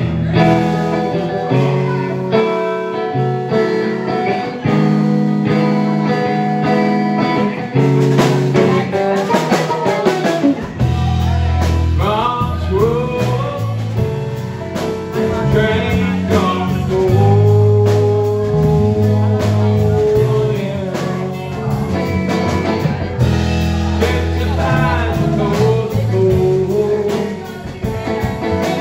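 Live band playing a slow, bluesy song: electric guitar, electric bass and drum kit, with a man singing. The bass and drums fill out the low end about ten seconds in.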